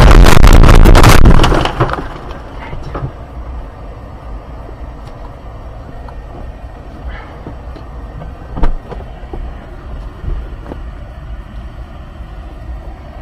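A car crashing off the road into roadside brush and trees: a loud crash and clatter of impacts that stops about a second and a half in. After it comes a quieter low rumble with scattered small knocks and one sharp thump about two-thirds of the way through.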